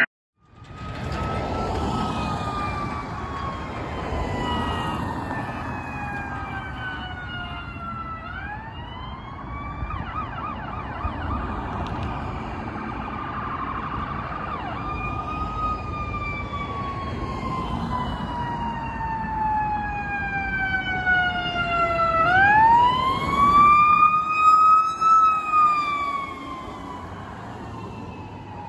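Ambulance siren on a slow wail over traffic noise: each tone rises quickly, then falls slowly for about six seconds, with a brief fast warble partway through. It is loudest a little past twenty seconds in, then fades as the ambulance drives away.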